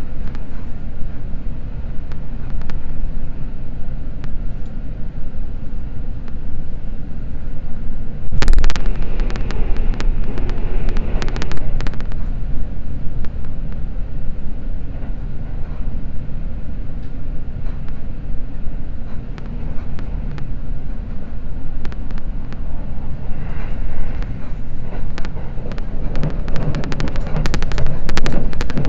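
Running noise of a Seibu Red Arrow limited express train at speed: a steady rumble of wheels on rail with scattered clicks. A sudden louder rush comes about eight seconds in, and the clicks come thicker near the end.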